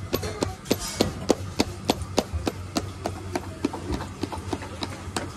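Palms patting bhakri dough flat on a floured wooden board in a steady rhythm, about three sharp pats a second, a little softer in the second half.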